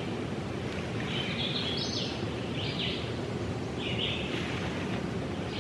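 Forest ambience: a steady hiss with short, high, buzzy calls repeating every second or so.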